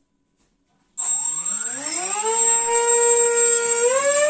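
Sky Surfer RC plane's 2212 brushless outrunner motor spinning up its propeller about a second in: the pitch rises, holds steady, then climbs again near the end as the throttle is pushed up. A steady high whine from the 30 A electronic speed controller sits above it.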